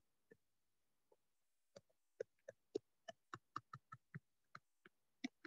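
Faint taps and clicks of a stylus against a writing surface while handwriting is written stroke by stroke, sparse at first and then about four a second from roughly two seconds in.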